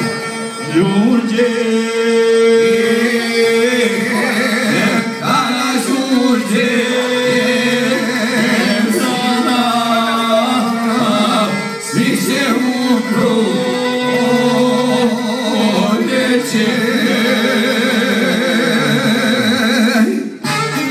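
Male voices singing a folk song live into microphones, with violin and a plucked string instrument accompanying; the singers hold long notes with a wavering vibrato.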